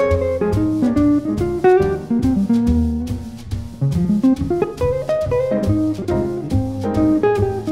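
Small jazz group playing a swing tune: an archtop jazz guitar plays single-note melodic lines over double bass and drums, with a rising run about four seconds in.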